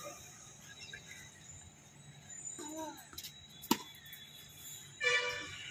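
A tennis racket strikes a ball once on a forehand: a single sharp pop a little under four seconds in. A short voice-like call follows near the end.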